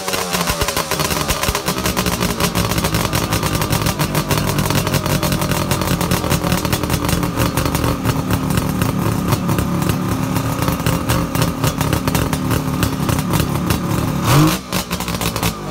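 Suzuki GT750 'Kettle' two-stroke triple running: the revs settle back to a steady idle in the first second, then a quick blip of the throttle near the end.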